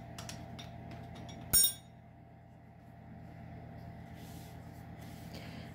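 A single sharp, ringing clink of kitchenware being knocked or set down about a second and a half in, with a few light clicks before it, over a faint steady hum.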